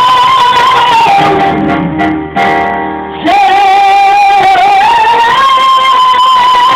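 A man sings long held notes to his own acoustic guitar. About a second in the voice breaks off for roughly two seconds, leaving softer guitar, then returns with a held note that climbs in pitch.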